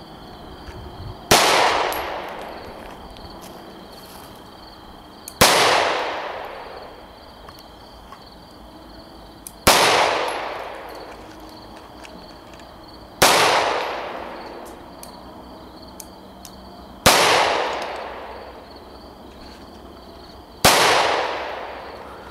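Six single shots from a 9mm pistol, spaced about four seconds apart, each a sharp crack followed by an echo that dies away over about a second.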